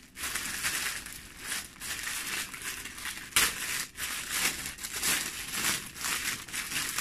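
Packaging crinkling and crackling as it is pulled open by hand, with one sharp, loud crackle about three and a half seconds in.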